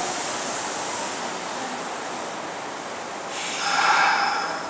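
Kintetsu electric train moving along the platform, a steady rumble of wheels and running gear. About three seconds in, a louder, brighter rush of noise swells for about a second and then cuts off suddenly.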